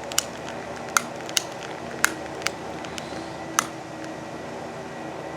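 A lighter clicking about six times at irregular intervals, in sharp short clicks, while trying to light a bundle of Morning Glory sparklers that have not yet caught.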